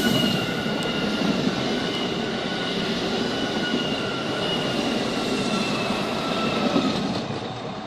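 Renfe train passing at speed: a steady rushing rumble of wheels on the rails with a thin high whine over it, easing off near the end as the train goes by.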